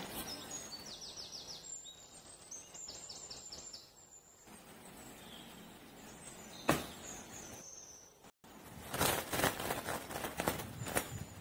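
Birds chirping in short, quick trills over quiet outdoor background noise. A single sharp click comes about two-thirds of the way through, then a rapid run of knocks or scrapes near the end, louder than the birdsong.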